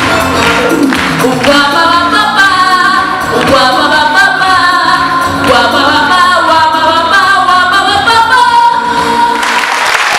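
A vocal ensemble singing long held notes with no clear words, over backing music; near the end a noisier wash rises under the voices.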